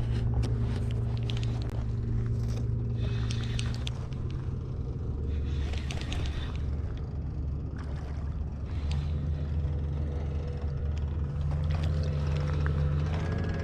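A boat engine running steadily: a low droning hum with a fainter higher tone above it, easing off in the middle and growing louder again in the second half, with small clicks and scrapes close by.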